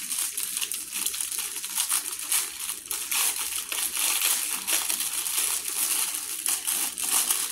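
Packaging crinkling and rustling as it is handled, a continuous stream of small crackles.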